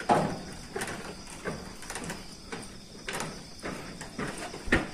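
A string of irregular knocks and scrapes, roughly one every half second, over the steady chirring of crickets.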